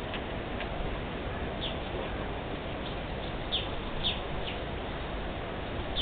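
A small bird chirping: about six short, high, falling chirps spread over the last four seconds, over steady outdoor background noise.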